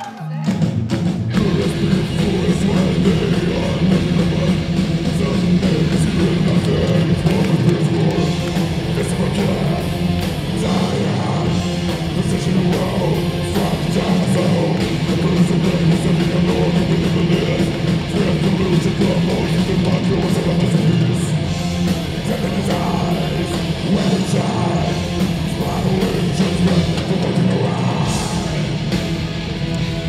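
Progressive metal band playing live, heard from within the audience: distorted electric guitars, bass and drum kit come in loud all at once at the start and keep going as a dense, heavy wall of sound, with vocals over it.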